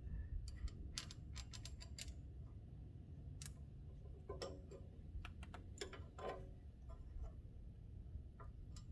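Irregular light clicks and taps of small sway bar link parts (rubber bushings, a metal sleeve) being handled and fitted together by hand, over a low steady rumble.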